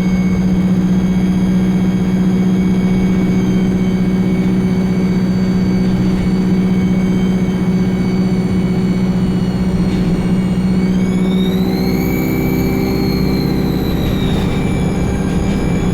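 Alexander Dennis Enviro 200 (E20D) bus's diesel engine running with a loud, high-pitched turbocharger whistle over a steady low hum. About eleven seconds in, the whistle rises in pitch as the engine picks up, then slowly falls away.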